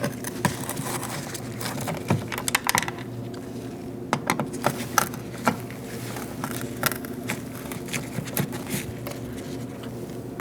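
Phillips screwdriver backing out screws from a truck's rear door panel: irregular small clicks and ticks of the driver and screws, over a steady low hum.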